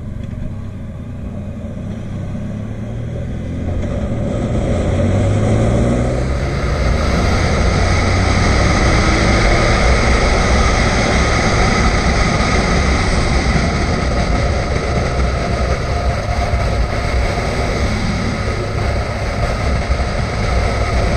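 Motorcycle engine accelerating out of a hairpin bend, its note rising over the first few seconds. It then settles into a steady, louder rush of engine, road and wind noise at riding speed.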